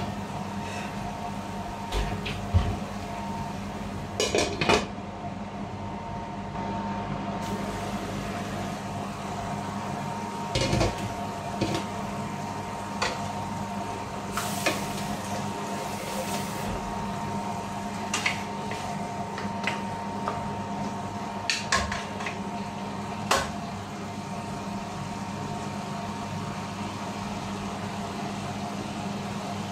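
Stir-fry of sponge gourd and mushrooms simmering in sauce in a frying pan, giving scattered short pops and clicks over a steady hum.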